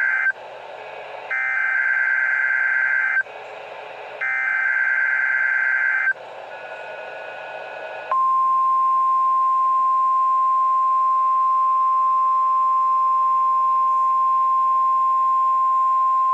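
NOAA Weather Radio emergency alert data bursts, a harsh two-pitch buzzing screech about two seconds long, repeated at one-second gaps and ending about six seconds in. About eight seconds in, the radio's warning alarm starts: one loud, steady single-pitch tone held without a break. Together they make up a test of the NOAA Weather Radio warning alarm.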